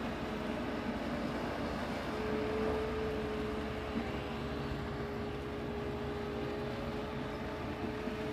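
A vehicle engine running steadily, with a thin steady whine coming in about two seconds in.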